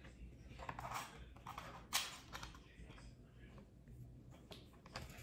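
Hands screwing an accessory onto a camcorder: faint scattered plastic clicks and rubbing, with one sharper click about two seconds in, over a low steady hum.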